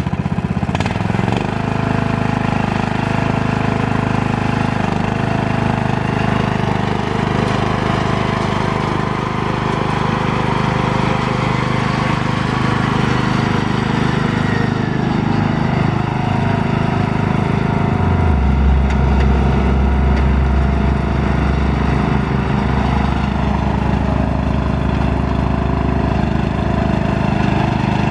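Yard Machines riding lawn mower engine running steadily as the mower is driven along. A deeper low hum comes in about two-thirds of the way through.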